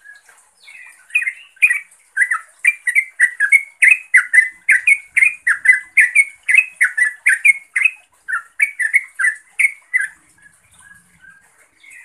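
Yellow-vented bulbul (trucukan) giving a fast, loud run of chattering call notes, about three to four a second, starting about a second in and stopping about ten seconds in, then a few softer notes. It is the call to a rival or companion.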